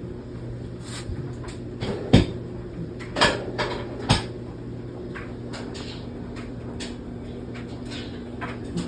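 Kitchen cabinet doors being opened and shut: light clicks and a few knocks, the three loudest about two, three and four seconds in, over a steady low hum.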